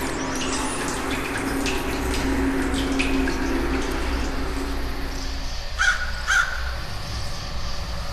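A low steady hum with scattered small ticks, fading out about five and a half seconds in, then a crow cawing twice in quick succession.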